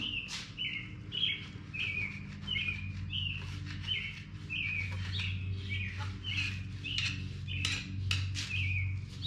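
A bird calling the same short falling note over and over, about twice a second, over a steady low hum. A few sharp scraping clicks come near the end.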